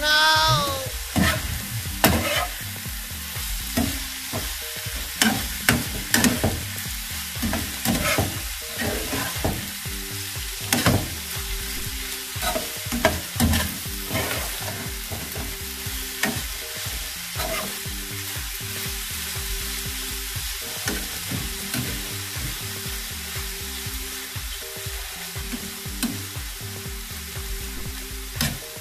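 A spatula scraping and tapping against a nonstick frying pan as chopped broccoli and tomato are stirred and turned, with a steady sizzle of frying underneath. The strokes come irregularly throughout.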